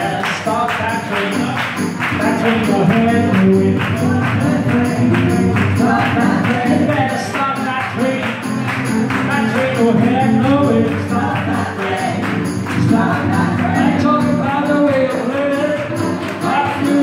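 Live acoustic blues: an acoustic guitar strummed in a steady, even rhythm, with a harmonica playing wavering, bent notes over it and no singing.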